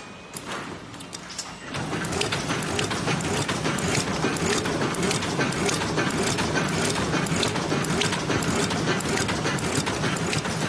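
Automatic laminated bubble mailer bag making machine running: a dense, steady mechanical clatter of many rapid clicks. The clatter gets louder about two seconds in and holds.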